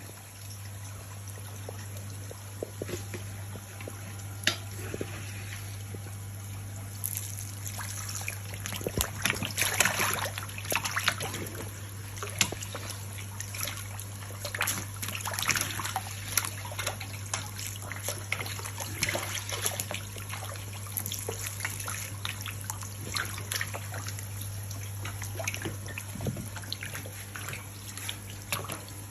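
Water trickling and splashing over a steady low hum, with a busier spell of splashes about a third of the way in.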